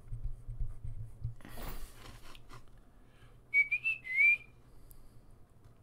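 A person whistles two short notes about halfway through, the second sliding upward, over a low steady microphone hum. Earlier there is a brief burst of rustling noise.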